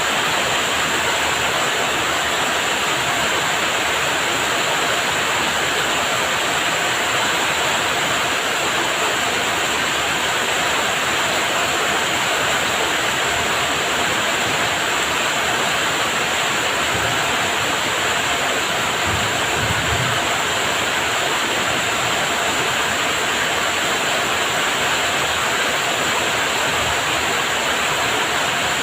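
Heavy rain falling steadily: a dense, even hiss with no letup, and a brief faint low rumble about two-thirds of the way through.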